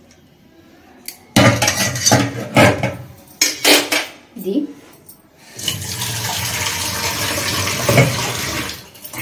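Steel kitchen vessels clinking and clattering for a few seconds, then, from about halfway, a kitchen tap running steadily into a stainless-steel sink.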